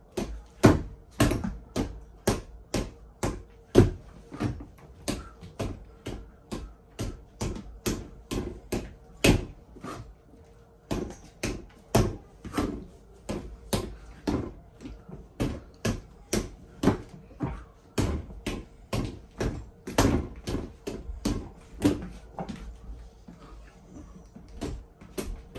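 Punches landing on a FITVEN freestanding reflex punching bag, the inflated ball smacking and springing back on its stem, about two to three sharp hits a second. The hits pause briefly about ten seconds in, then carry on.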